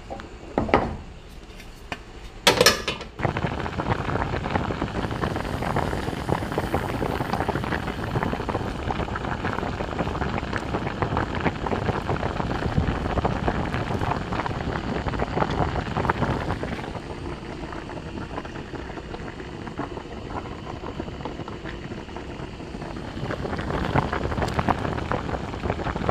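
Food cooking in a hot pan or pot: a steady crackling sizzle that sets in after two sharp knocks near the start. It eases off for a few seconds past the middle and picks up again near the end.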